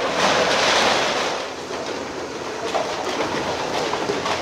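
Brick masonry and timber crashing down as a high-reach demolition excavator pulls apart a building wall, loudest in the first second and a half, followed by rubble clattering and settling. A steady diesel engine hum runs underneath.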